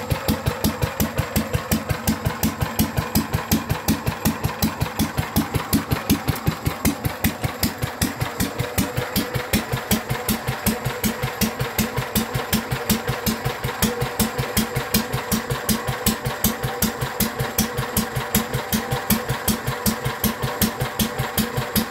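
Small single-cylinder hopper-cooled stationary engine running steadily, each firing stroke a sharp, even beat about four times a second.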